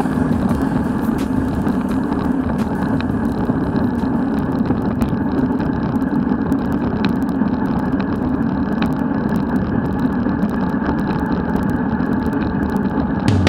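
Steady rumble of wind and road noise on a camera riding along on a bicycle, with faint scattered clicks.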